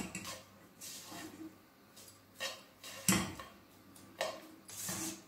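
A spatula knocking and scraping against a frying pan while cooked lemon rice is mixed, a few soft separate knocks with quiet between them.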